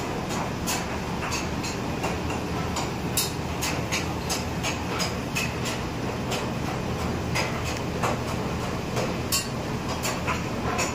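Restaurant kitchen cooking: a steady roar of gas burners and extractor, with frequent irregular sharp clinks and scrapes of a metal ladle against steel karahi pans.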